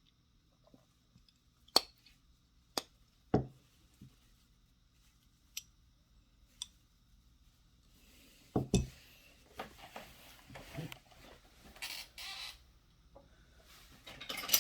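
Small metal parts of a 3/8-inch ratchet clicking and clinking as they are handled and fitted back together: a few sharp separate clicks, then a busier stretch of knocks and scraping from about eight seconds in.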